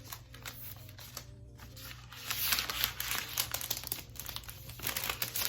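Crinkling and tearing of a new laptop's packaging wrap as it is handled and pulled open, growing louder and busier about two seconds in.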